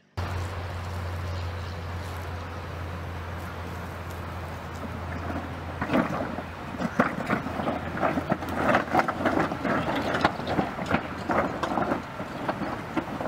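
Toyota 4Runner on rough ground: a steady low drone from the vehicle, then from about six seconds in, irregular crunching and knocking of rocks under its tyres as it crawls over a rock pile.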